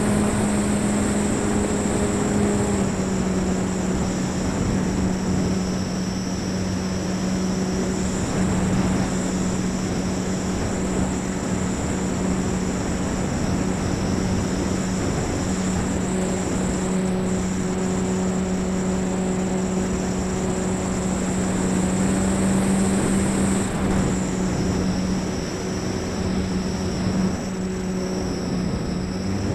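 E-flite Apprentice S RC trainer plane in flight, heard from on board: its electric brushless motor and propeller drone steadily with a high whine over it, the pitch shifting slightly with throttle. Air rushes over the airframe.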